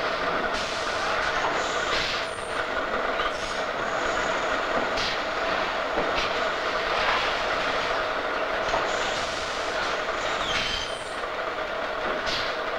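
Food-packaging machinery running with a steady mechanical hum and two constant tones, with a few short clicks and hisses now and then.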